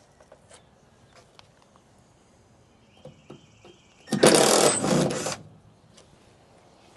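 Light clicks of tools on the trim, then a small cordless driver's faint whine backing out a chrome-trim screw. About four seconds in, a loud rushing noise lasts just over a second.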